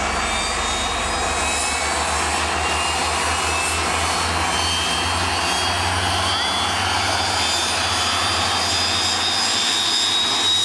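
BAe Hawk Mk 51 jet trainers' turbofan engines running: a steady jet rush with a high whine that climbs slightly in pitch.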